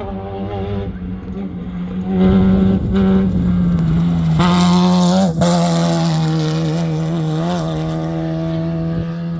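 Vehicle engine running at a steady, nearly constant speed, louder from about two seconds in, with a brief dip in pitch about five seconds in.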